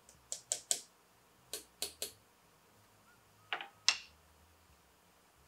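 Small hammer tapping small nails into a wooden glazing bead to start them: light, sharp taps in three short groups, with pauses between.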